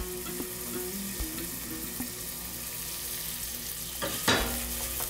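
Chopped onion sizzling as it fries in hot oil in a stainless steel pot, a steady sizzle with a brief louder burst a little after four seconds in.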